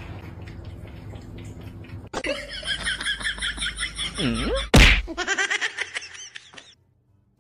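A person laughing in quick, high-pitched bursts, about four a second, over a low steady hum, with a single sharp smack, the loudest sound, close to five seconds in.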